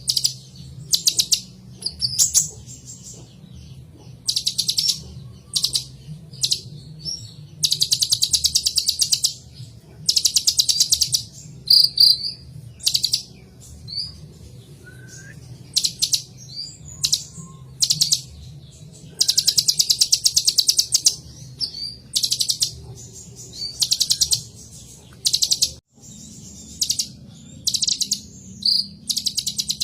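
A kolibri ninja sunbird singing continuously. It gives bursts of rapid, high trills, each about one to two seconds long, with short separate chirps between them. A faint low hum runs underneath.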